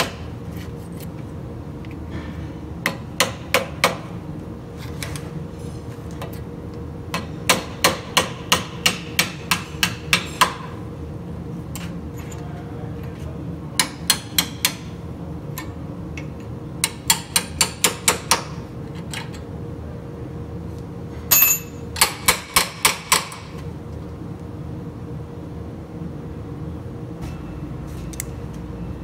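Hammer tapping a cold chisel against the rusty steel bracket of a vintage parking brake lever assembly, in quick runs of metal-on-metal strikes with pauses between. One strike about 21 seconds in rings out louder and brighter, all over a steady low hum.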